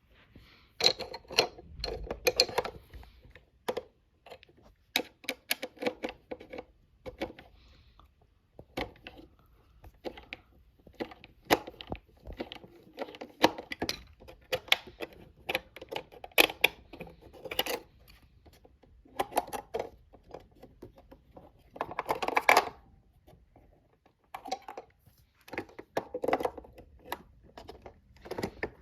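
Small hard objects being handled: irregular clicks, taps and rattles, with a couple of longer scraping or rustling bursts.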